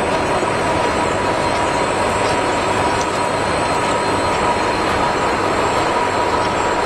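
Gear hobbing machine running, its hob cutting teeth into a gear blank: a steady, even mechanical noise with a faint steady whine.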